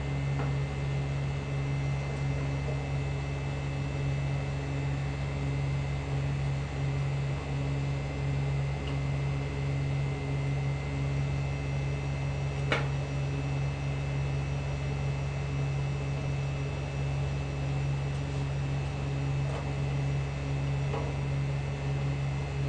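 A steady low hum, like an electric fan or appliance running, with faint steady high tones over it. A single sharp click comes about halfway through.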